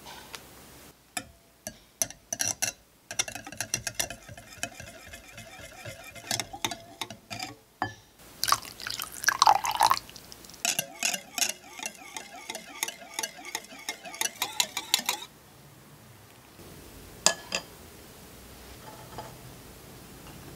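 Wire balloon whisk beating egg yolks, oil and milk in a glass bowl, its wires clinking and rattling against the glass in quick strokes, with a stretch of liquid swishing about halfway. The whisking stops about three quarters through, followed by a couple of light taps.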